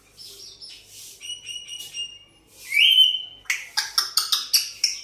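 African grey parrot whistling and chirping: a few short whistled notes, then a loud rising whistle about three seconds in, followed by a quick run of sharp chirps near the end.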